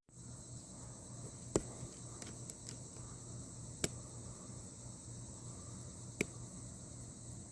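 Crickets chirping in a steady, continuous high-pitched drone, with three sharp clicks spaced a couple of seconds apart.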